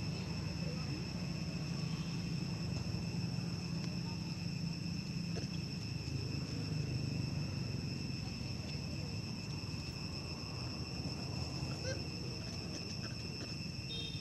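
Steady, high-pitched insect drone, cicadas or crickets, holding one even tone throughout, with a low rumble underneath.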